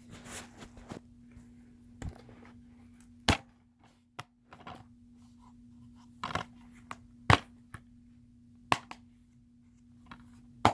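A plastic DVD case and disc being handled, giving a series of sharp clicks and snaps with softer rustling between.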